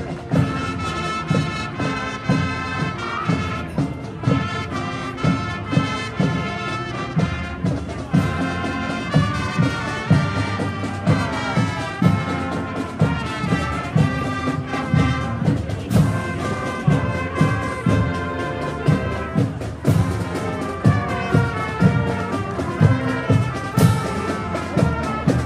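Marching band playing: brass horns (trombones, trumpets, saxophones) carry the tune over a steady drum beat.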